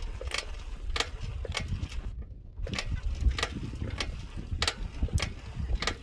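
Riding a bicycle along a rough path: wind rumbling on the microphone, with irregular clicks and rattles from the moving bike.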